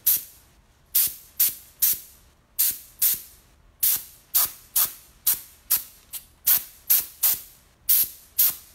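Short puffs of compressed air from an air-compressor nozzle, repeated about two to three times a second, each a sharp hiss that fades quickly, blowing paint across a lampshade.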